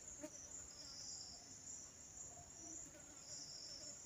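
Faint, steady high-pitched chirring of insects in the background, wavering a little in strength.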